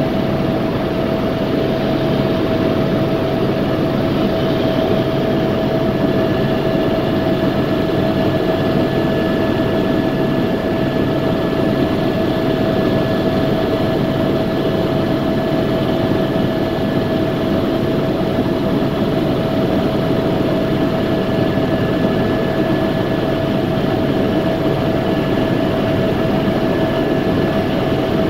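Helicopter in flight: a loud, steady drone of rotor and engine with a constant whine held at one pitch.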